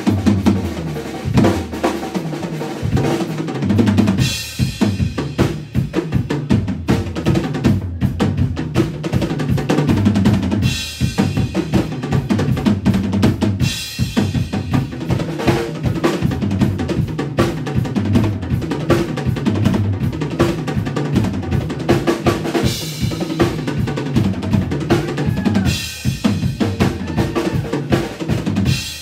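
Live drum kit solo: fast, busy strokes across snare, toms and bass drum, with several bursts of ringing cymbals along the way.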